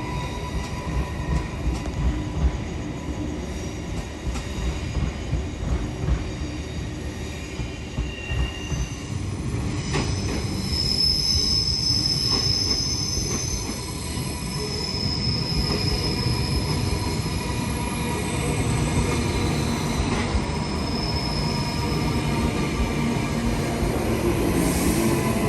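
Queensland Rail suburban electric train running between stations, heard from on board: steady low rumble of the wheels on the track, with high-pitched wheel squeal coming and going from about ten seconds in as the train takes curves.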